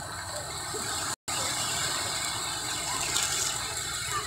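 Small surf waves washing onto a sandy beach, a steady hiss of water, with a short gap about a second in where the sound drops out entirely.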